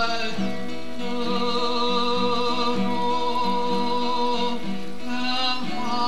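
Music from a slow song: long held chords over a low note pattern that repeats about twice a second, with no words.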